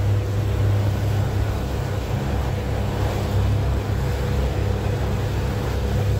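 Motorboat engine running steadily under way: a low drone with a thin steady whine above it, over the hiss of water along the hull.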